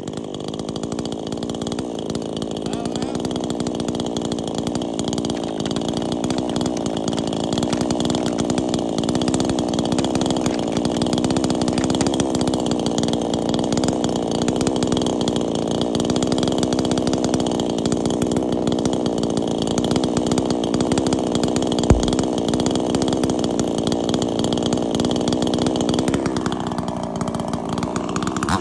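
PROYAMA 68cc two-stroke chainsaw held at steady high throttle, cutting through a hardwood log; its pitch shifts near the end. A single sharp knock about 22 seconds in.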